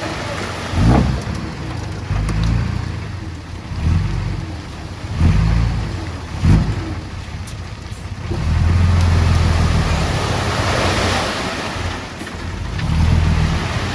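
Diesel engine of heavy earthmoving equipment working under varying load, rising and falling in loudness, with a few sharp knocks.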